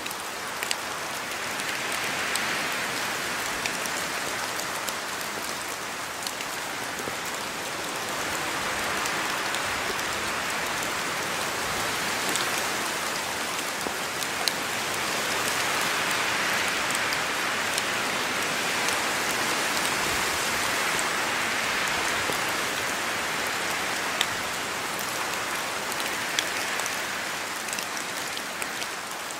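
Steady rain falling, a dense hiss that slowly swells and eases every several seconds, with scattered sharp ticks of individual drops striking a surface.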